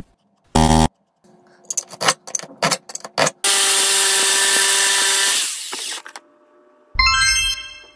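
Handheld electric jigsaw running for about two seconds as it saws into a wooden board, a steady buzzing motor with blade rasp, then winding down. Before it come a short blip and a few sharp clicks of the tool being handled.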